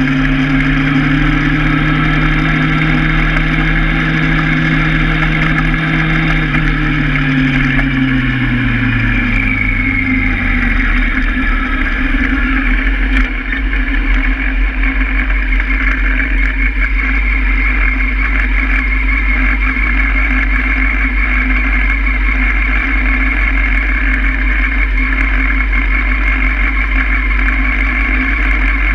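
Honda Hornet's inline-four motorcycle engine coming off the throttle as the bike slows, its pitch falling over several seconds. About halfway through it settles to a steady idle while the bike stands stopped.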